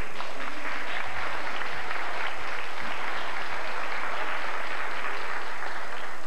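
Audience applauding: a dense patter of many hands clapping that stops fairly suddenly near the end.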